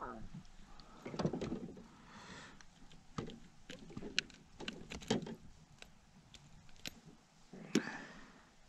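Small knocks, clicks and rustling from handling a caught smallmouth bass and its lure over a landing net in a plastic fishing kayak, with a louder knock near the end.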